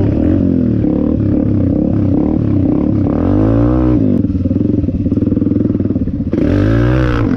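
Dirt bike engine heard from on board while being ridden, revving up and easing off several times as the throttle is opened and closed.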